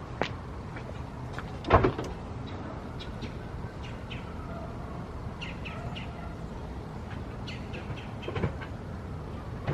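One loud clunk about two seconds in and a softer knock near the end, over a steady low hum. Small birds chirp faintly in the middle.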